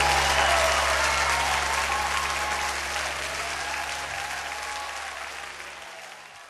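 Congregation applauding at the close of a live worship song, with a held low note from the band underneath; the whole fades out steadily.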